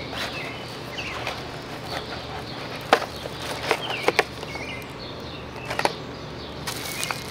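Cardboard product box and its wrapped contents being handled and unpacked: a few sharp taps and clicks with light rustling, the loudest about three seconds in. Birds chirp faintly in the background.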